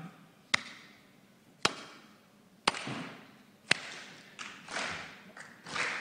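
Four sharp clicks at an even pace of about one a second, each with a short echo, marking off a count of seconds.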